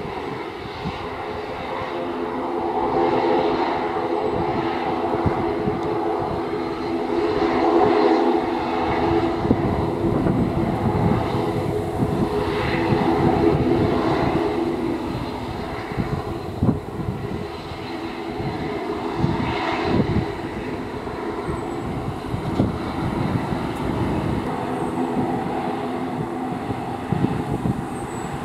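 ATR 42 twin-turboprop airliner taxiing with its engines at low power: a steady propeller and turbine drone with several held tones over a rumbling low end.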